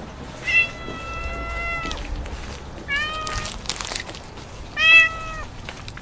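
Tabby cat meowing three times: one long, drawn-out meow, then a short one, then a louder meow near the end.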